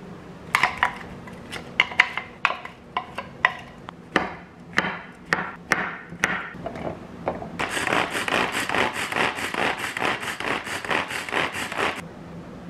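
A chef's knife cutting shiitake mushrooms on a wooden board: irregular sharp knocks. After about seven seconds a manual food chopper mincing the mushrooms makes a fast, even rattle for about four seconds, which stops abruptly.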